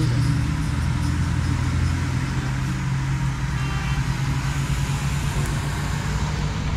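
Road traffic: car engines running with a steady low hum as cars drive past along the street.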